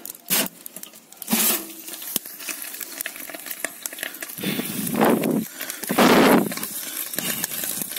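Chicken in a smoker over a charcoal grill, crackling and sizzling in rapid irregular pops, with two louder rushes of noise about five and six seconds in.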